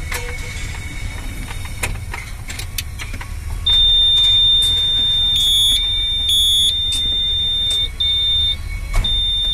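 Electronic warning buzzer sounding a loud, high, steady tone once the ignition key is switched on. It comes in a few seconds in and breaks off briefly a few times near the end, over light clicks of wires being handled.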